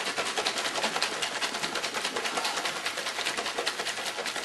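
Milkshake being shaken hard in a sealed shaker container, the contents sloshing and knocking inside in a rapid, even rhythm.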